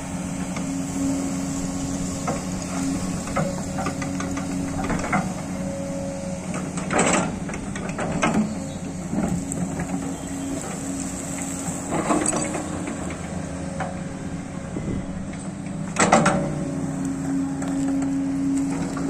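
Sany crawler excavator's diesel engine running steadily as it digs, with the bucket scraping and knocking into dry soil: four loud knocks spread through, among smaller scrapes.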